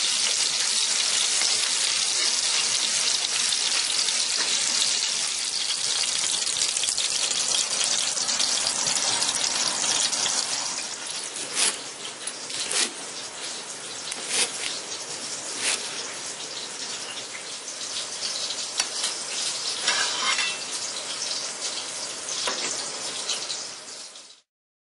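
Breaded pork cutlets frying in hot oil in a pan, with a steady sizzle. About ten seconds in it gets quieter, and several sharp knocks follow as a knife cuts through the crisp fried cutlet onto a cutting board.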